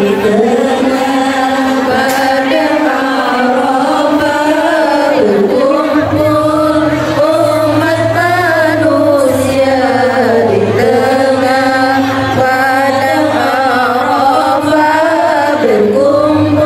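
Voices chanting in long, drawn-out notes that slide up and down without a break. A low, steady note joins about six seconds in and holds until near the end.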